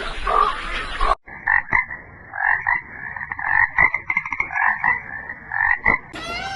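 Frog croaking in a quick series of repeated rough calls. This follows a hard cut about a second in from a different animal's calls.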